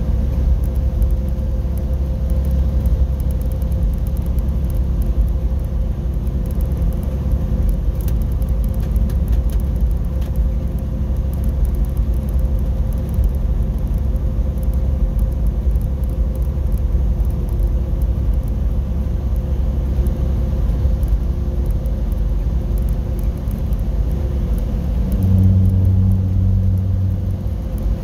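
Steady low rumble of engine and tyres on a wet highway, heard from inside the vehicle's cab. A louder low hum rises for about two seconds near the end.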